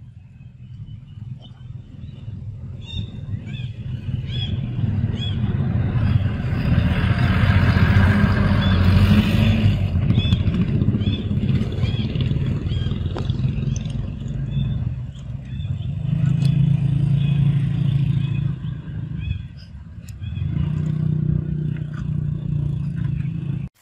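A motor vehicle engine running close by, building to its loudest about eight seconds in, then easing and swelling again twice, with faint high chirps repeating over it.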